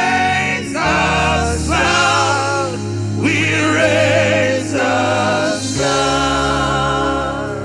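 Gospel worship music: sung voices holding long notes with vibrato over sustained keyboard and bass chords.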